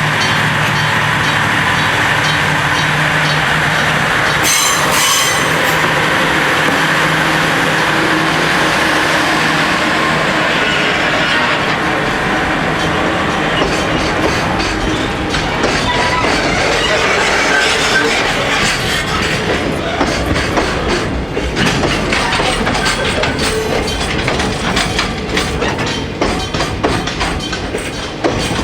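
A freight train running over a level crossing. A low steady engine hum comes first, with the crossing's warning bell ringing in a steady repeat. In the second half the wagons' wheels clatter rapidly over the rail joints.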